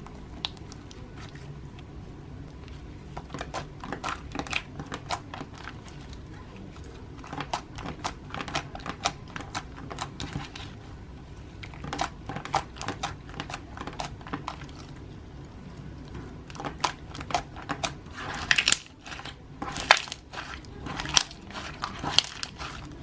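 Slime being worked, giving clusters of sharp crackly clicks and pops that come in spells of a few seconds, loudest near the end.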